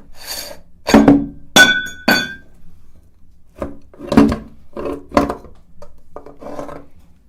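A series of sharp clinks and knocks, hard objects striking one another about a dozen times, a few ringing briefly.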